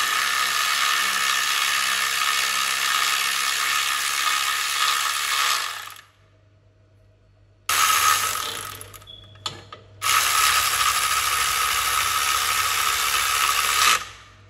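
Cordless power tool spinning the oil sump bolts in: a steady whirring run of about six seconds, a short burst near the middle, then a second run of about four seconds.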